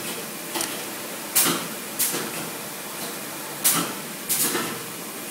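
Yogurt filling machine cycling: about five short, sharp bursts of hiss at uneven intervals over a steady background hiss.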